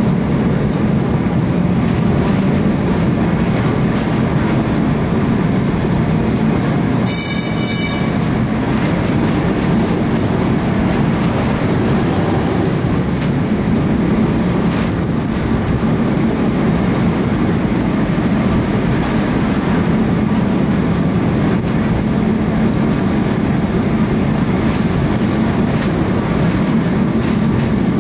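Lisbon tram running on its rails: a steady, loud rumble of wheels and running gear. It is broken by brief high-pitched wheel squeals, one about seven seconds in and fainter ones a few seconds later.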